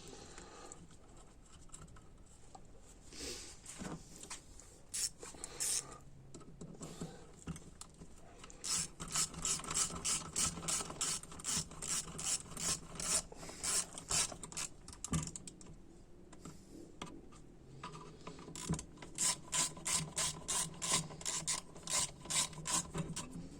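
Hand ratchet clicking in two long runs, about four clicks a second, as the two small bolts of the transmission valve body cover are driven down, with a few scattered clicks before.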